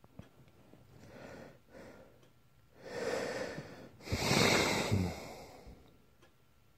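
A sleeper breathing heavily and snoring. Softer breaths are followed by two loud snoring breaths about three and four seconds in; the second is the loudest and ends in a low rattle.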